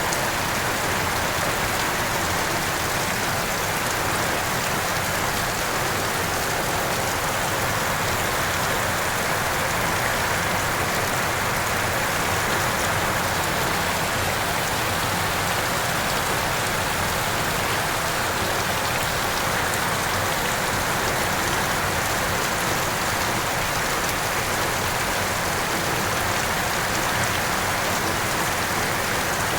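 Heavy rain falling steadily, a constant even hiss of rain on surfaces.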